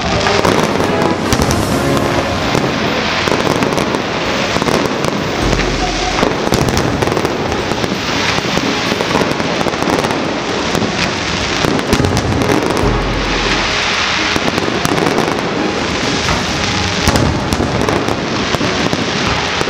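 Aerial fireworks display at full intensity: a dense, continuous crackle of many rapid pops and bangs from bursting shells, with no break.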